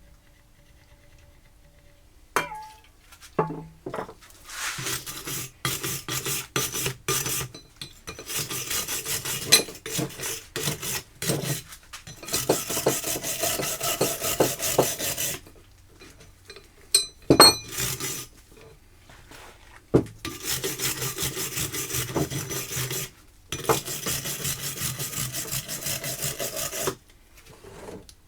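Metal woodworking-vise parts being scrubbed clean of grease with acetone: several long bouts of rapid back-and-forth rubbing, separated by short pauses, with a few sharp clicks about two-thirds of the way through.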